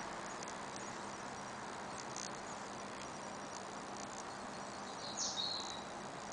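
Faint garden ambience at dusk: a steady background hiss with scattered short, high chirps and ticks, and one louder high chirp with a falling end about five seconds in.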